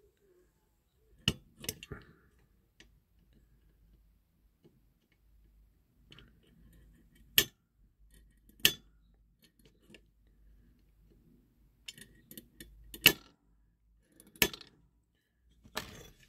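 Spring-loaded automatic centre punch snapping as it is fired against the tight rivet posts of a diecast toy body: sharp single snaps every few seconds, some in close pairs, about seven in all.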